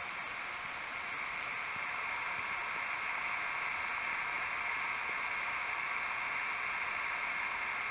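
A steady, even hiss from a film's soundtrack playing through a television's speakers, growing slightly louder about a second in.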